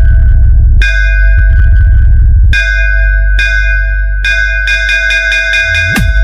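Loud electronic DJ sound-check music: a heavy, continuous deep bass under repeated bell-like ringing synth strikes in quick clusters, with a falling bass sweep near the end.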